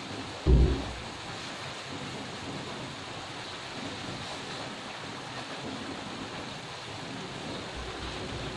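Diced chayote and carrots cooking in a little water in a wok on a gas burner, a steady sizzling hiss. A single low thump about half a second in.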